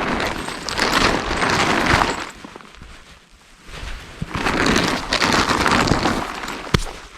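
Two bursts of crunching and rustling, each about two seconds long, with a few sharp clicks, the second burst ending in a single sharp knock.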